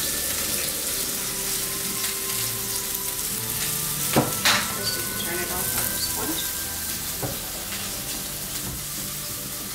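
Frenched rack of lamb sizzling steadily as it sears in oil in a skillet, with two sharp knocks a little over four seconds in.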